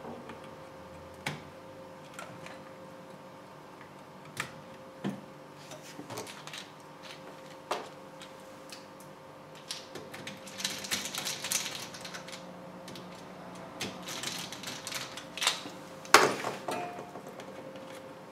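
Scattered sharp clicks and clatters of hands working cables and plastic connectors inside an open-frame computer rig, busier about two thirds of the way through, with the loudest clack near the end. A faint steady hum runs underneath.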